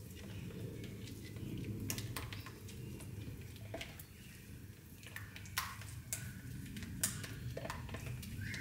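Soap batter being hand-stirred with a stirring stick in a plastic measuring jug: scattered light clicks and scrapes of the stick against the jug, with two sharper clicks in the second half, over a steady low hum.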